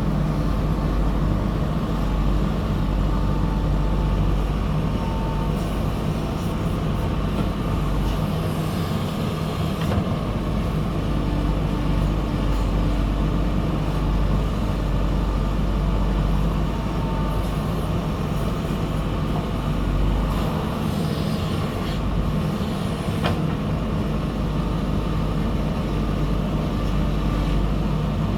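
Diesel engine of a backhoe loader running steadily under load while it works soil.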